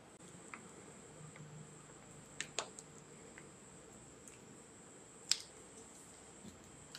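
Quiet room tone with a faint steady high hiss and a few sharp light clicks from handling a small bowl and sauce packet: two close together about two and a half seconds in, and one a little after five seconds.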